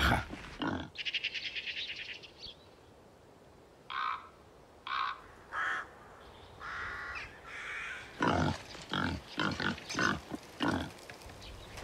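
Wild boars grunting and squealing, a run of repeated calls in the last few seconds as half-starved animals crowd onto fodder. Earlier, a fast rattling trill and a few short, harsh, separate calls.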